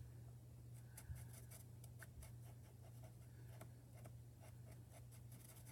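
Faint scratching and tapping of an alcohol marker's tip colouring tiny cut-paper shoe buckles, over a low steady hum.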